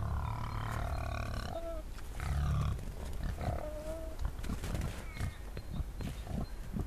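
Wild boar grunting and squealing: deep harmonic grunts through the first few seconds, a short thin squeal about four seconds in, then a run of sharp crunching clicks as they root and feed in the snow.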